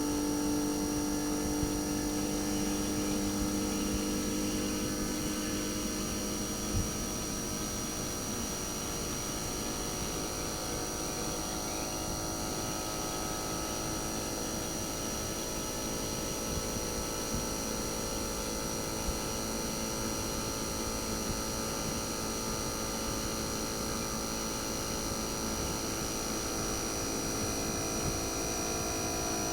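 RECHI 43W26SH single-rotary inverter compressor of a Sharp AU-J25XY air-conditioner outdoor unit running, a steady hum made of many held tones. The lowest tones change about six seconds in, with a small click near seven seconds.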